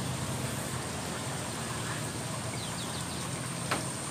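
Steady outdoor background: a low hum with a thin, constant high hiss above it. A few faint chirps come through around the middle, and a single short click sounds near the end.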